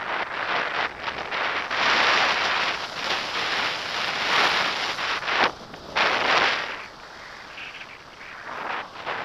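Airflow buffeting the microphone of a pole-mounted camera in paraglider flight: a gusty rushing that swells and dips in waves, easing off about seven seconds in, with one more gust near the end.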